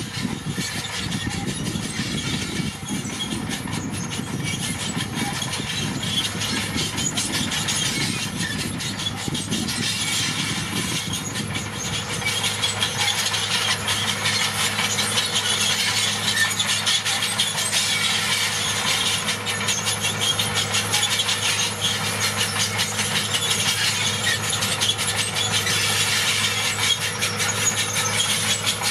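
Crawler bulldozer working: diesel engine running under load, with its steel tracks squealing and clattering. It gets louder about halfway, with a steadier engine note.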